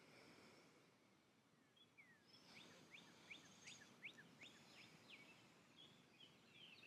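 Faint outdoor quiet, broken from about two and a half seconds in by a bird giving a quick run of about ten short chirps, each sliding down in pitch.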